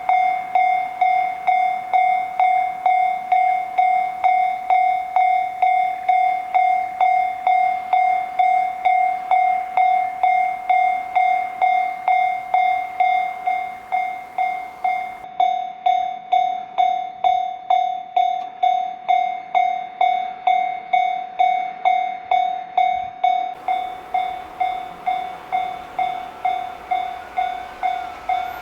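Japanese railroad crossing warning bell ringing its steady 'kan-kan' at about three strikes a second, the signal that a train is approaching. Near the end a faint rising whine comes in as the train draws near.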